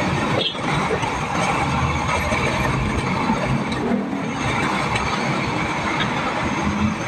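Homemade pressurized blowtorch burner running with a steady rushing noise.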